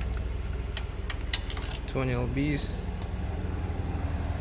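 A few light metallic clinks of hand tools, with a short high ring after some of them, over a steady low hum.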